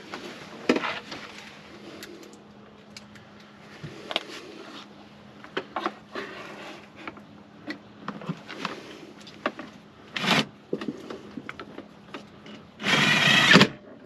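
Electric drill with a magnetized driver bit running screws in: a short burst about ten seconds in and a longer, louder run near the end, amid scattered clicks and knocks of parts and tools being handled.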